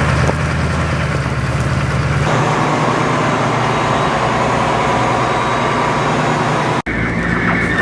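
Heavy vehicle engine running steadily, in short edited clips that change about two seconds in and again near the end.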